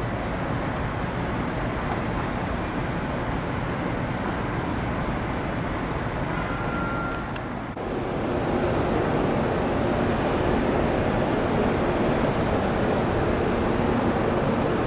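Jet airliner engine noise, a steady rushing sound; about halfway through it cuts to a louder stretch with a faint steady hum in it.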